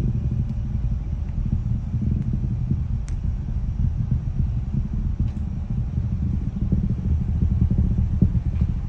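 Distant rocket launch rumbling: a steady low roar with a continuous crackle.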